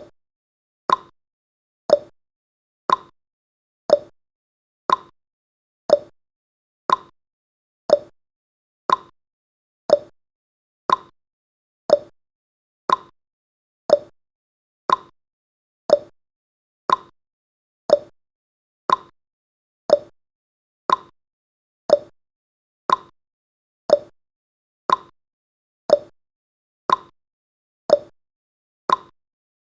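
Clock-style ticking sound effect of a countdown timer, one short, sharp tick every second, evenly spaced.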